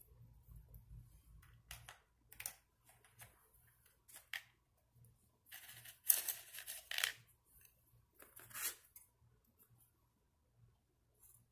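Faint scissors snipping and paper straws being handled and scraped on cardboard, in short scattered bursts; the loudest run comes about six to seven seconds in.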